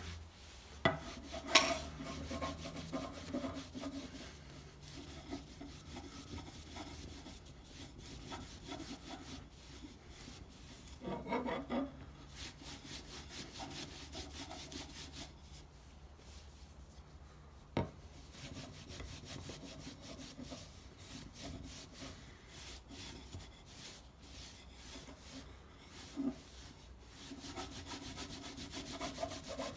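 Cloth rubbing briskly back and forth along a waxed wooden hammer handle, buffing the wax finish. A few light knocks break in early on and about two-thirds of the way through.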